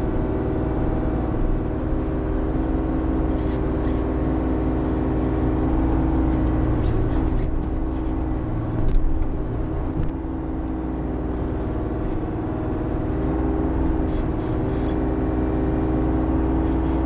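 Bobcat E35i mini excavator's diesel engine running steadily under working load inside the cab as the bucket digs and moves dirt, with a brief louder knock about nine seconds in.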